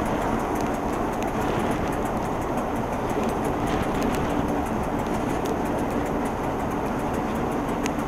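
Passenger train running steadily along the track, heard from the window of the last coach with the Class 47 diesel locomotive coupled close behind. A steady rumble and drone with a few faint clicks.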